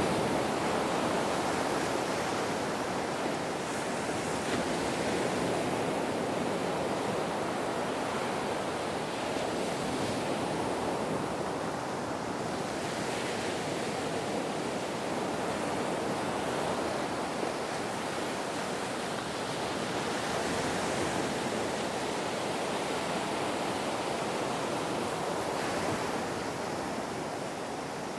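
Ocean waves washing in a continuous surf, swelling and easing slowly, with no single crash standing out.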